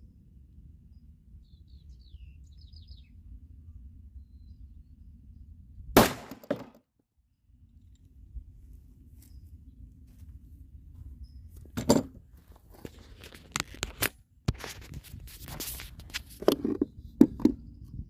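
A single .40 S&W pistol shot from a Glock 23 firing a Federal Hi-Shok 155-grain hollow point into ballistic gel, sharp and loud, about six seconds in. It is followed later by a string of knocks and clatter.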